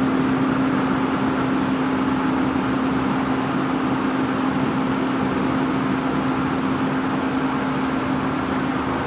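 Rice milling unit running steadily, driven by a Mitsubishi 6D14 six-cylinder diesel engine. A constant machine hum holds one steady tone under a rushing noise.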